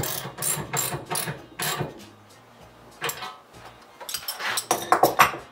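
9/16 wrench tightening a lock nut on a bolt through the steel support arm: a run of sharp metallic clicks, about three a second, for the first two seconds, then a pause and a few more clicks from about three to five seconds in.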